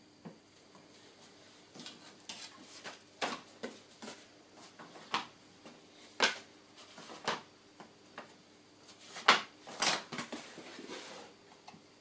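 Handling noises: irregular taps, knocks and rustles of card and grey board being moved about and set down on a work surface, with two sharp knocks about nine and ten seconds in.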